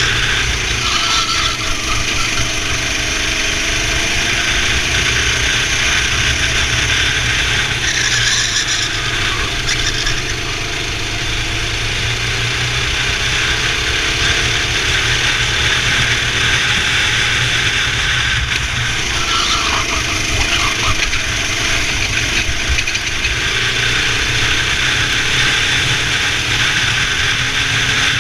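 Racing kart engine running hard, its pitch rising and falling repeatedly as the kart accelerates and slows through the corners, with brief squeals about eight and nineteen seconds in.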